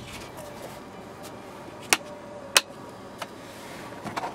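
Plastic clicks of a car sun visor being moved on its pivot: two sharp clicks about two-thirds of a second apart near the middle, with a couple of fainter clicks around them.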